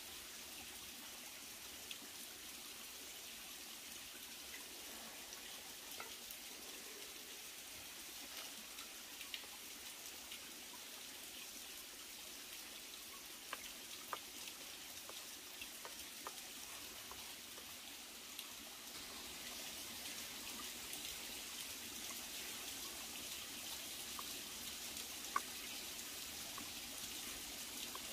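Steady rush of a rocky forest stream flowing, a little louder from about two-thirds of the way in, with scattered small clicks and taps over it and one sharper click near the end.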